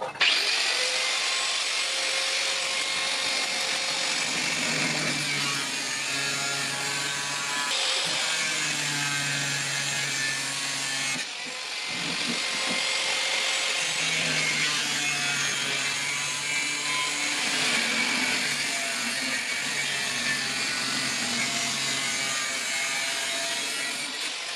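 A power tool running steadily under load, with a brief dip about eleven seconds in.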